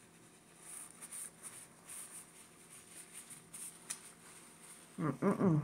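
Quiet eating sounds: soft chewing and the rustle of a paper napkin being handled, with a small click about four seconds in. Near the end, a short hummed "mm" from a person's voice.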